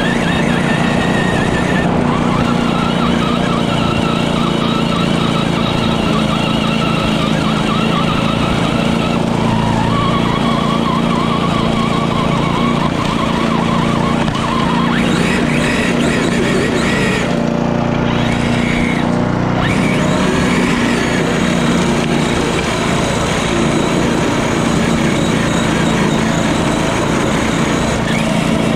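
Gas push lawnmower engine running steadily under load as it cuts grass, with the whine of the RC monster truck's electric motor and drivetrain rising and falling as the truck pushes the mower.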